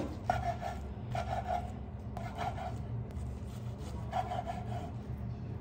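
Chef's knife sawing through a kimbap roll on a wooden cutting board: the blade rasps through the nori wrapping in four short strokes, about one slice a second with a pause before the last.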